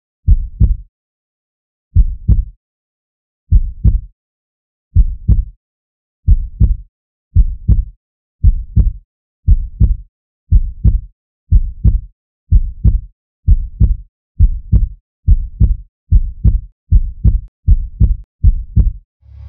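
Heartbeat sound effect: pairs of deep low thumps, lub-dub, at first about one and a half seconds apart, speeding up steadily to more than two beats a second near the end.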